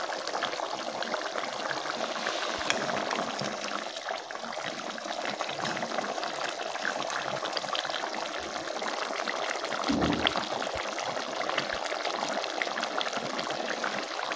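Fish curry in an aluminium pot, a steady liquid bubbling with many small pops, as a steel ladle stirs and lifts the fish pieces. A short low thump comes about ten seconds in.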